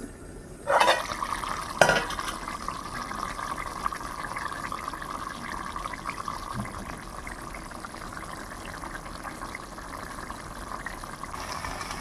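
A pan of curry bubbling and hissing after liquid has gone into the frying meat, with a short clatter about a second in and a sharp knock of a utensil near two seconds.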